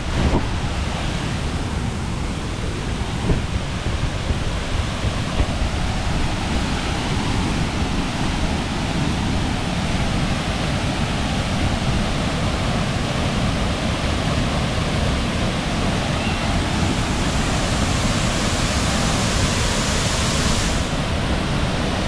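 A powerful waterfall pouring into its plunge pool: a loud, steady rush of falling water with a heavy low rumble under it. The hiss turns brighter for a few seconds near the end.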